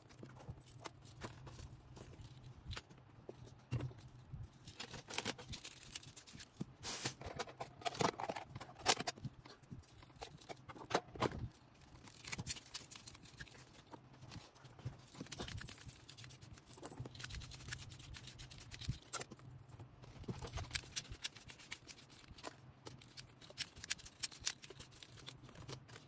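Hands handling packaging and small items while packing an order: irregular rustling with many light clicks and taps, over a low steady hum.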